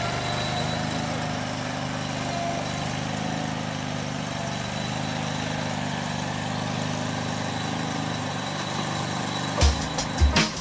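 Engine of a Sealegs amphibious boat running steadily as the boat drives on its wheels. Music with a heavy beat starts about a second before the end.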